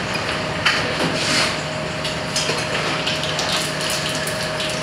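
Busy commercial kitchen: a steady hum under a rushing background, with scattered clinks and clatter of utensils and steel trays.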